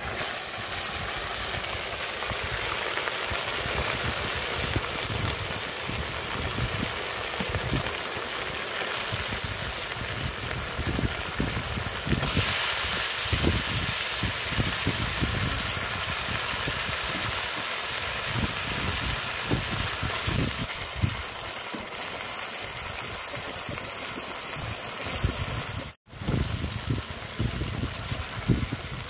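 Washed mutton pieces sizzling in hot oil with onions in an iron kadai, a steady hiss that grows louder about twelve seconds in as more meat goes in. Near the end the hiss breaks off for an instant, then goes on under a slotted spatula stirring the meat.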